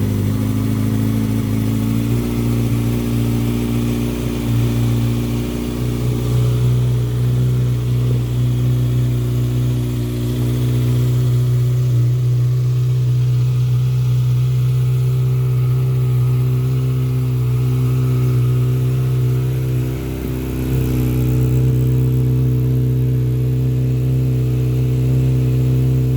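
Kawasaki ZX-6R's inline-four engine idling steadily, freshly filled with new oil.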